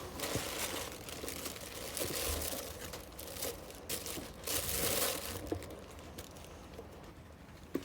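Plastic bag crinkling as it is handled and pulled open, in irregular bursts, loudest about two seconds in and again around five seconds in.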